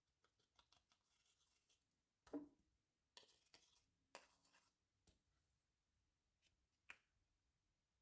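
Slime being squished and worked by hand: faint sticky clicks, crackles and squelches, the loudest squelch a little over two seconds in.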